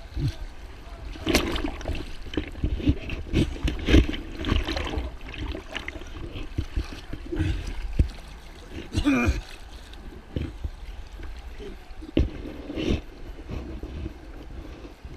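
Whitewater splashing in rapids, broken by many irregular knocks and bumps close to the microphone.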